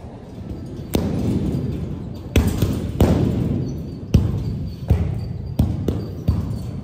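About seven heavy thuds of sneakers landing on a gym floor during resistance-band jump drills, at uneven spacing, each ringing out in the echo of a large hall.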